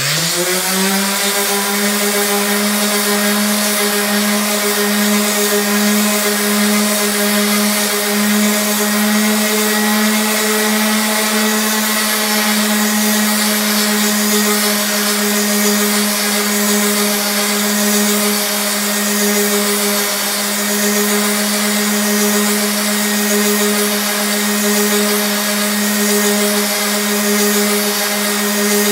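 Old Ryobi random orbit sander switched on, its motor spinning up within the first second and then running with a steady hum as it sands a plywood surface. The owner says the worn sander has stuff clicking inside and no longer sounds healthy.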